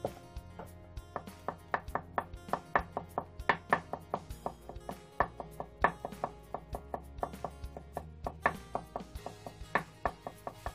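Kitchen knife chopping slices of ham into small dice on a wooden cutting board: a quick, uneven run of sharp knocks of the blade on the board, with soft background music underneath.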